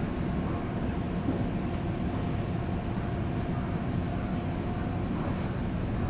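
Outdoor unit of an LG system air conditioner running: a steady low drone with a faint steady hum above it.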